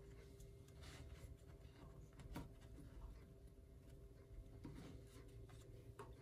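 Near silence: faint rustling and a few soft taps of a thin spring-roll wrapper being folded and rolled by hand, over a low steady hum.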